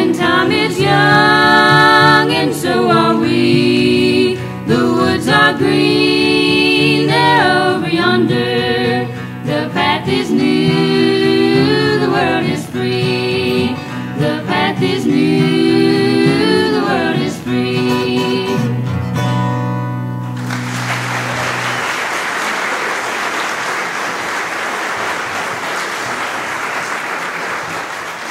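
Women singing in harmony over strummed acoustic guitars, closing a bluegrass song on a held chord about twenty seconds in. The audience then breaks into applause.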